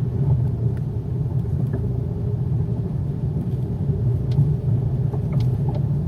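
Range Rover Evoque on the move, heard from the cabin: a steady low road rumble with a few light knocks from the front-left suspension, a knock traced to a worn front anti-roll bar link.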